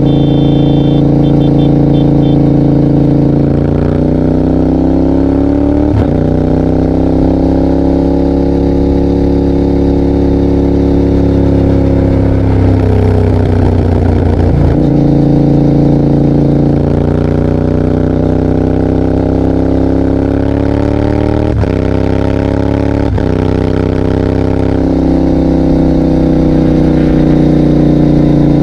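Yamaha Tracer 7's 689 cc parallel-twin engine through an open GPR exhaust with the dB killer removed, pulling hard through the gears. The pitch climbs and drops sharply at quickshifter upshifts, about 6 seconds in and twice more near the end. Around the middle the note breaks up for a few seconds before it builds again.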